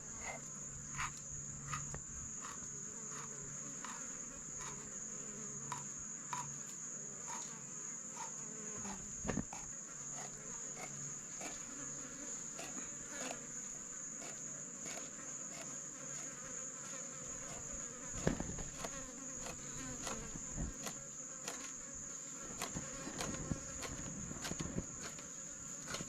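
A steady, high-pitched drone of insects. Scattered small clicks and knocks occur over it, a little louder around 9 s and 18 to 21 s.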